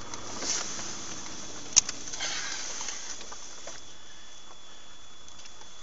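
Steady hiss of a dashcam recording inside a moving vehicle, with a faint steady high whine, a single sharp click a little under two seconds in and a few brief rustles.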